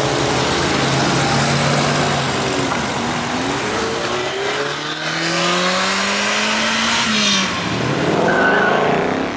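Nissan GT-R's twin-turbo V6 accelerating hard away, its note climbing and dropping back at each upshift, with shifts about 2 to 3 seconds in and again about 7 seconds in. Near the end another sports car revs up as it passes close by.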